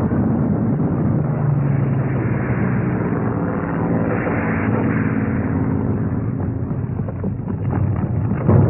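Battle sound effects: propeller aircraft engines droning through a continuous din of explosions and rumble, with a few sharp cracks late on and a loud bang near the end.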